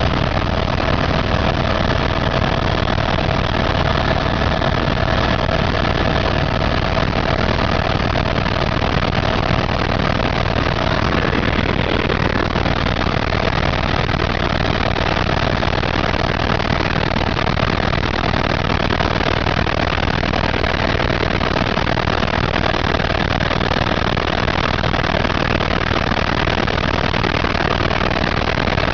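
A helicopter's engine and rotor running steadily in flight, heard from on board: dense, even noise with a thin steady whine that fades out about a third of the way through.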